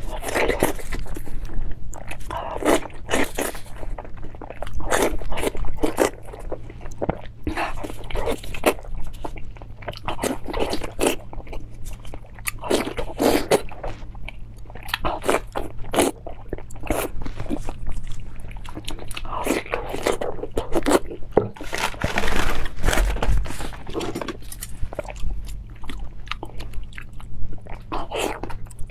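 Close-miked crisp crunching as bites are taken from a raw zucchini and chewed, in quick repeated crunches.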